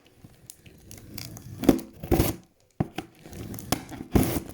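Parcel packaging being torn open by hand: several short, noisy rips with crinkling in between.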